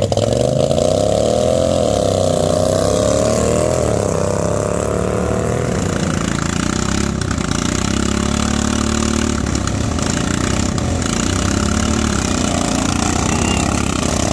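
Racing riding lawn mower engines running hard. Their pitch swings up and down for the first few seconds, then settles into a lower, steadier drone.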